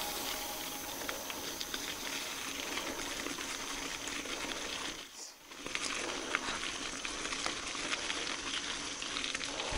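Mountain bike riding over a rough trail: a steady rush with many small crunching clicks and rattles, dipping briefly about five seconds in.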